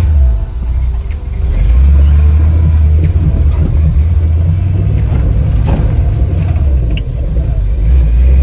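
Fox-body Ford Mustang's engine running as the car is driven slowly, a deep steady rumble that grows louder about two seconds in and holds.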